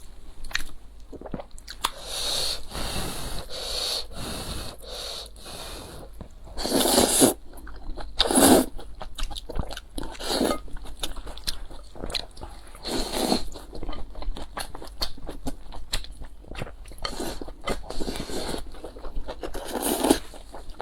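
Close-miked eating: steady chewing with many small wet mouth clicks, and a handful of louder crunches and bites spread through.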